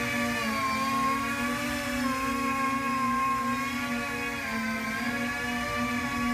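Electric motors and propellers of a small three-rotor tiltwing drone hovering: a steady whine whose pitch wavers slowly up and down as the throttle is adjusted.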